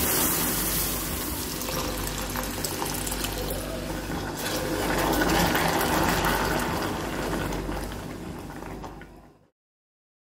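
Cold milk being poured into hot caramelized sugar in a pan and stirred with a plastic spoon, giving a steady hiss and bubbling of liquid. It fades out and cuts to silence about nine seconds in.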